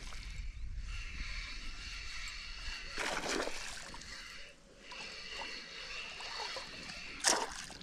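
Water splashing and sloshing as a hooked pike is played in on a fishing line, with a stronger splash about three seconds in and another near the end.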